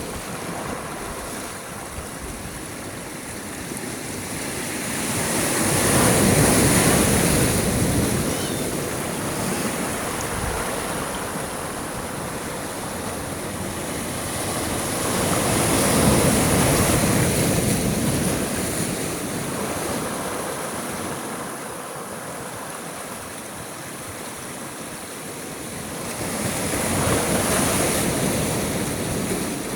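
Sea waves. Three waves come in about ten seconds apart, each swelling up and falling back over a steady hiss of surf.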